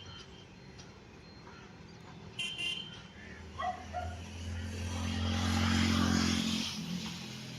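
A train passing: a steady low hum swells into a rushing rumble that is loudest about six seconds in, then dies away. A short high-pitched toot comes about two and a half seconds in.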